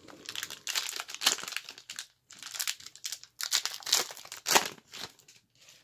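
Foil wrapper of a 1990-91 NBA Skybox Series II trading-card pack crinkling in rapid crackly bursts as gloved hands tear it open, in three spells with short breaks between.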